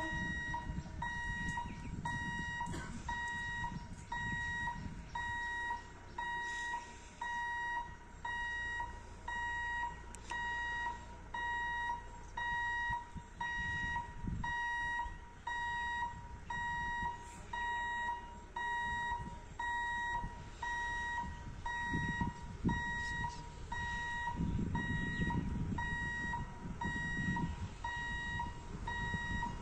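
Level-crossing warning alarm beeping about once a second, one steady electronic tone with the gate closed for an approaching train. A faint low rumble underneath grows stronger in the later part.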